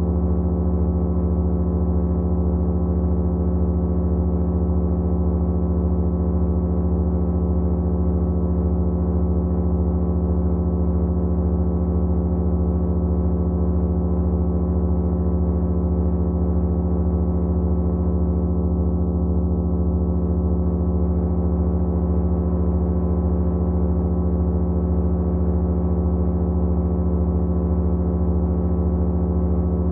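Several motors running together at a steady speed, giving a loud, unchanging low hum made of many held tones, with one higher tone pulsing evenly as the motors beat against each other.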